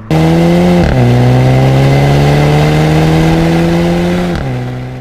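Mercedes-Benz W177 A250's turbocharged four-cylinder engine through an Fi valved catback exhaust, accelerating: the exhaust note climbs slowly, dropping in pitch at an upshift about a second in and again after about four seconds, then fades away.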